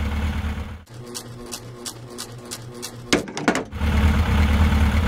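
Cartoon engine sound effect for a toy car: a steady low engine idle hum that gives way about a second in to a rhythmic clicking, chugging run, a short loud swish just after three seconds, then the low idle hum again.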